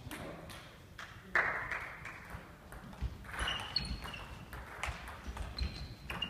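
Table tennis ball in play during a doubles rally: a string of sharp, irregular clicks as the celluloid ball strikes rackets and table, with a few short squeaks of shoes on the hall floor.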